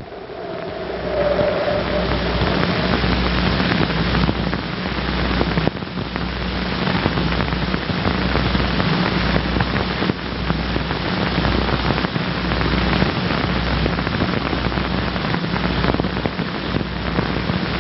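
Continuous crackling hiss with a low hum underneath: the surface noise of an old 16mm film soundtrack.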